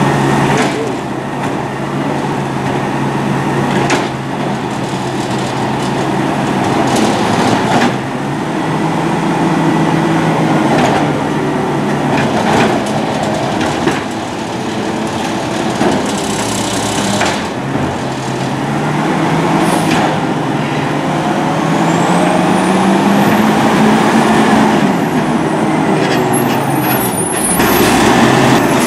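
A side-loader garbage truck's engine running, its pitch rising and falling partway through, with scattered clunks and knocks and a hiss of air about halfway through.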